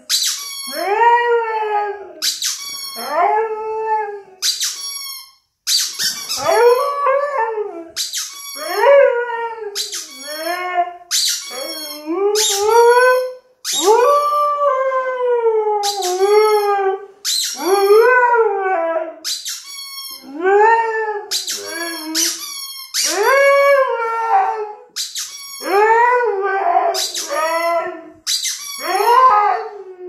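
Siberian husky howling along with a squeaking rubber chicken toy. Shrill squeals from the toy come every second or two, and the dog answers each with short howls that rise and fall in pitch.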